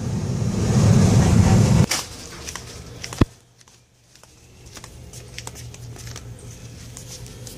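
Low rumble of a car heard from inside the cabin, cut off abruptly about two seconds in. Then a single sharp knock, followed by faint clicks and rustling of a phone being handled over a low steady hum.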